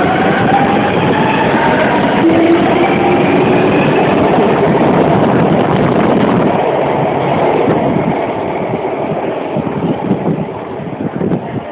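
Shanghai Metro train moving along the platform. Its electric traction motors whine in several rising tones over the rumble of wheels on rail, and the rumble eases off in the last few seconds.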